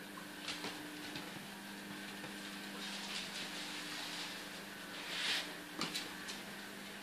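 A floor mop's cloth swishes and scrapes across wooden floorboards as it is pushed and pulled with a puppy hanging on to it, with a louder swish about five seconds in and a few sharp clicks. A low steady hum runs underneath.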